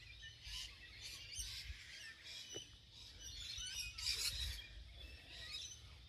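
Several wild birds chirping and calling, short warbling notes one after another, with a faint low rumble underneath.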